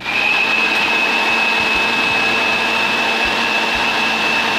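Electric mixer grinder switched on and running at full speed, blending milk, ice and ice cream in its steel jar: a steady motor noise with a high whine.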